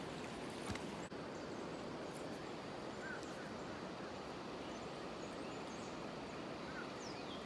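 Steady rush of flowing river water, with a few faint bird chirps and a quick series of falling high bird calls near the end.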